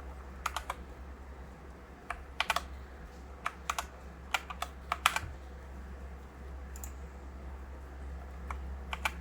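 iRocks K75M mechanical keyboard, Gateron switches under PBT keycaps, being typed on in slow, scattered keystrokes: sharp clicks in small groups of two or three, a pause of a second or two after about five seconds, then a few more strokes near the end.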